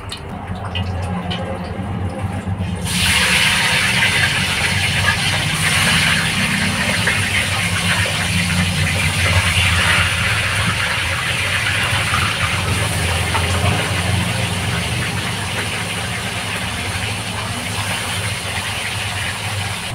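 Whole fish frying in hot oil in a wok: a steady sizzle that starts about three seconds in. A steady low hum runs underneath.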